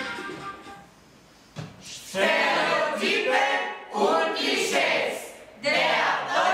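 Ensemble of mostly women's voices singing together unaccompanied in loud phrases with short breaks between them. The singing starts about two seconds in, after a brief lull as the preceding music dies away.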